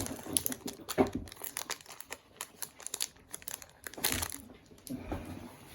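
Foil Pokémon booster pack wrapper crinkling as it is handled and pulled open: irregular crackling with louder rustles about a second in and again about four seconds in.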